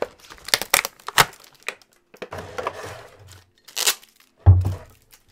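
Clear plastic blister packaging being torn open and handled, giving irregular sharp crackles and snaps, with one dull thump about four and a half seconds in.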